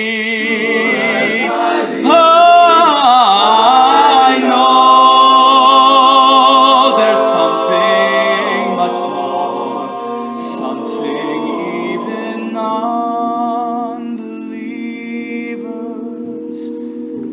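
All-male a cappella group singing: a male soloist sings with vibrato over the group's sustained backing chords. It is loudest in the first half and grows softer from about the middle on.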